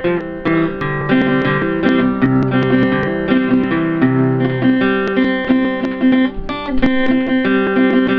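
Background music: a guitar track of plucked notes in a steady rhythm.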